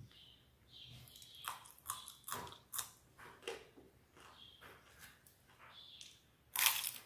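Close-up eating sounds: wet chewing and mouth clicks, with a loud crunchy bite near the end.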